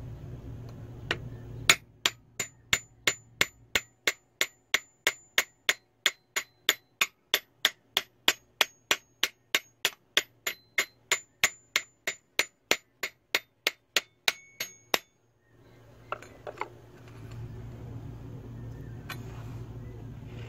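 A long run of light, evenly spaced strikes, about three a second, each with a short high metallic ring. It is the small axe head, cut from old circular saw blade steel, tapping against a wooden stick held in a vise. The run stops suddenly, followed by a few fainter knocks.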